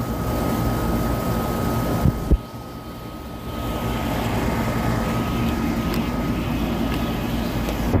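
Outdoor air-conditioner condenser units running with a steady fan drone, low rumble and a faint high whine. Two sharp knocks sound a little after two seconds in, after which the drone is briefly quieter.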